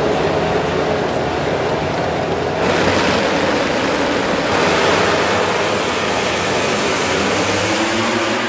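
A grid of 1000cc four-stroke MotoGP bike engines revving hard at the race start. The noise jumps up about two and a half seconds in and again around four and a half seconds, as the bikes launch at full throttle. Near the end, rising engine notes are heard as the pack accelerates away.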